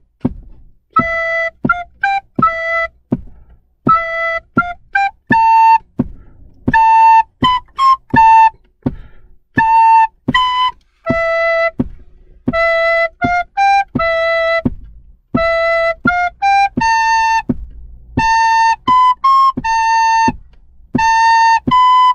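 Soprano recorders playing a simple four-bar school melody in short, separate notes that step up and down within a few neighbouring notes. The phrase is played once, then about halfway through a second recorder repeats it, ending on a higher note.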